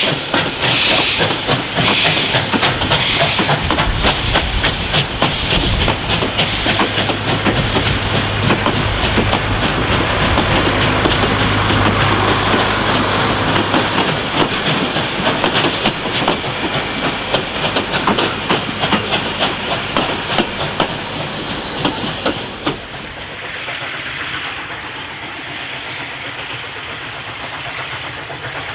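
Steam train passing close by: the 2-8-0 K class steam locomotive's exhaust beats fade over the first few seconds, then the carriages roll past with rapid clickety-clack of wheels over rail joints. About 22 seconds in the sound drops to a quieter, more distant train running.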